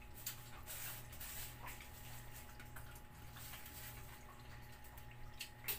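Several cats eating from a plate: faint wet chewing, lapping and small clicks, over a low steady hum.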